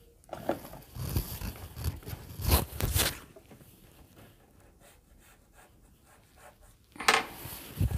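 Hands handling and rustling a cotton fabric strip beside a sewing machine. A cluster of scrapes and knocks comes in the first three seconds, then quieter handling, and another loud scrape about seven seconds in. The machine itself is not running.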